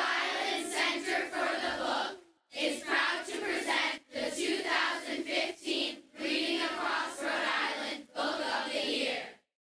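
A group of voices chanting or shouting together in four phrases, each separated by a short break; the sound cuts off abruptly near the end.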